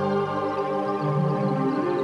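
Calm ambient new-age music of sustained keyboard chords, moving to a new chord about a second in.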